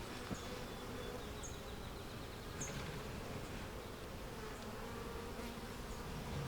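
Honeybees buzzing around a hive, a steady hum, with a few short high chirps about one and a half and two and a half seconds in.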